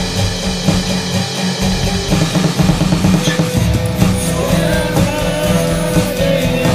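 Rock song playing, with guitar and a drum kit keeping a steady beat.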